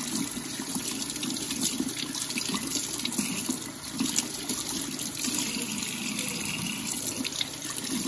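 Water running steadily from a tap as a gutted bluegill is rinsed clean under it, the stream breaking unevenly over the fish.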